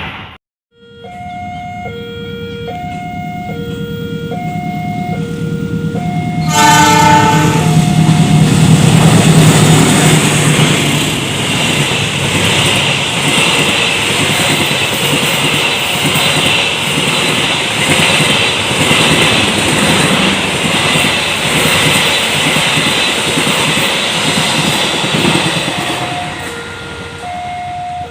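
A two-tone level-crossing warning alarm alternates steadily. About six seconds in, a locomotive horn sounds, and a train then passes close by for about twenty seconds, its engine and wheels rumbling and clacking. As the train fades near the end, the crossing alarm is heard again.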